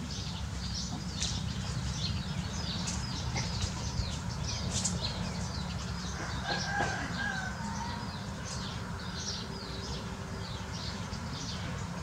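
Many small birds chirping in quick, high, overlapping notes, over a steady low rumble. About halfway through, a longer, lower drawn-out call sounds in the background.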